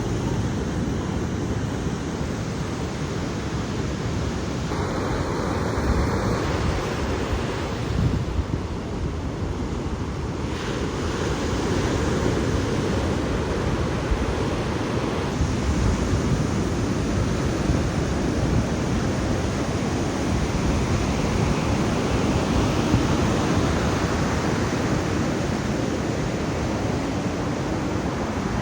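Ocean surf breaking and washing in continuously, with wind buffeting the microphone.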